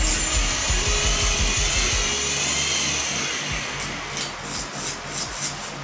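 Homemade RC grass-cutter car's small electric motors whirring as its spinning hacksaw-blade cutters rasp through grass. The sound is loudest for the first two seconds, then fades and turns uneven.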